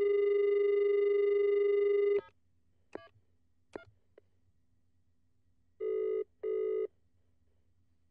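Telephone line tones: a steady dial tone that cuts off with a click about two seconds in, a few sharp clicks, then a single double ring of a ringing tone near the end.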